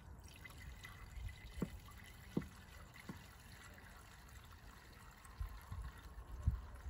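Two-stroke fuel mix (95 petrol with oil) trickling into the fuel tank of a Stihl FS 561 C-EM brush cutter, filling it for the first time, with a few light knocks.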